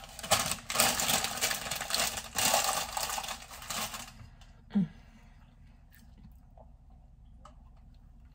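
Paper and plastic food packaging rustling and crinkling in dense, clicky bursts for about four seconds, then stopping. A short low sound about five seconds in, then only a few faint clicks.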